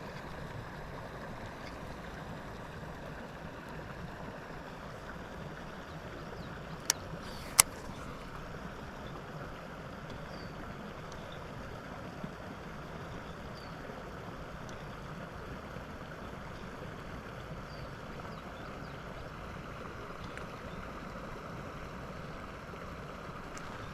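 Steady outdoor background noise with no distinct source, broken by two sharp clicks about seven seconds in, less than a second apart, and a fainter click a few seconds later.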